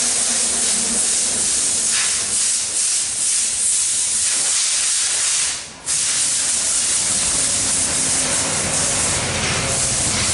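A steady, loud hiss, like spraying air or liquid under pressure, that cuts out briefly a little past halfway and then resumes.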